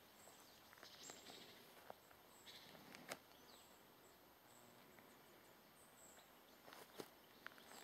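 Near silence: quiet forest ambience with faint, short, high chirps every second or so and two sharp clicks.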